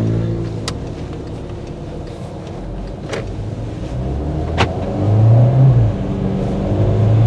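VW Touran's 1.4 TSI engine heard from inside the cabin, pulling away and accelerating: the engine note swells about five seconds in, eases, then rises again near the end, with a few light clicks. It runs smoothly without the judder it had under throttle before its flywheel was replaced.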